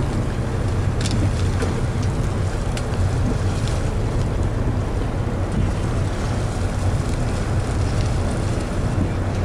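Fishing boat's engine running with a steady low hum, under wind buffeting the microphone and sea washing past the hull. A few light knocks come in the first few seconds.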